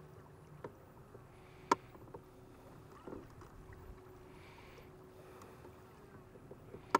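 Fishing boat on open water: a faint steady hum with a few sharp knocks, the loudest about two seconds in and another near the end.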